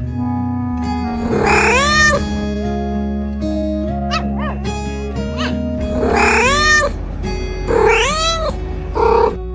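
Cat meowing several times, drawn-out meows that rise and then fall in pitch, with a few shorter, softer ones in between, over steady background music.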